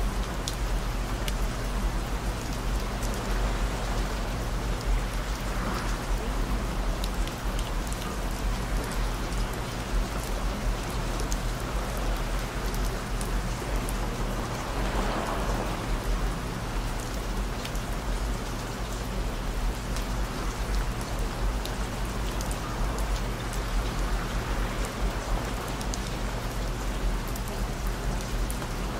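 Steady rain falling, with sharp drop ticks here and there, over a low drone of steady held tones.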